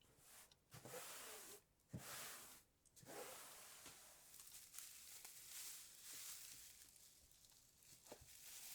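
Faint rustling and handling noises, with brief pauses and a couple of soft knocks, from objects being set out and moved.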